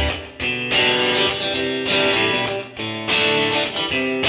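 Background music: a guitar instrumental with notes and chords changing every half second or so.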